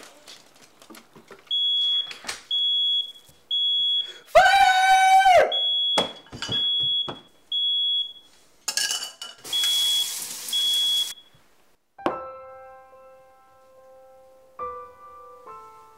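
Smoke alarm beeping about once a second, the sign of the pan burning. A loud high-pitched cry comes about four seconds in, and a burst of hissing about nine seconds in. Soft piano-like notes of music begin near the end.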